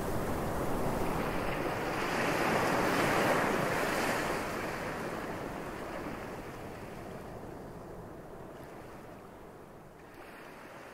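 Ocean surf: a steady wash of breaking waves that fades slowly away.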